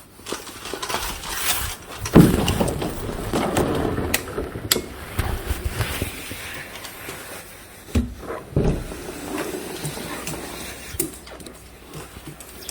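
Pungsan dogs making a strange, urgent vocal sound, loudest from about two seconds in, with two sharp knocks around eight seconds in.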